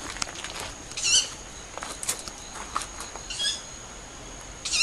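Three short, high-pitched calls from an unidentified bird, heard at dusk, about a second in, at about three and a half seconds and just before the end. Each is a brief hooked, rising note with several overtones, and the first is the loudest. The uploader wonders whether the caller is a young owl.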